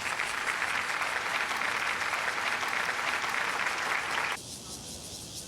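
A steady, even buzzing from an insect, which cuts off abruptly about four seconds in.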